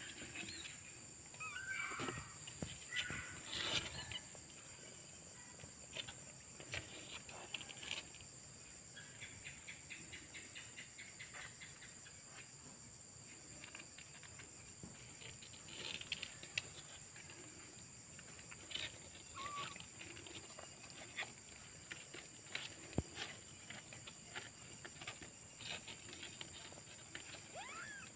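Faint outdoor ambience: a steady high-pitched insect drone, with scattered light scratches and rustles as a kitten moves on the cardboard floor of a box.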